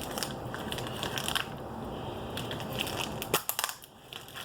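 Packaging being handled and rustled while a parcel is unpacked: crinkling and crackling with many small clicks, and a sharper, louder click a little past three seconds, after which it goes quieter.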